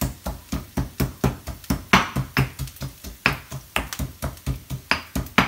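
Stone pestle pounding garlic and ginger in a stone mortar: quick, regular thuds, about four to five a second, with a few harder strokes.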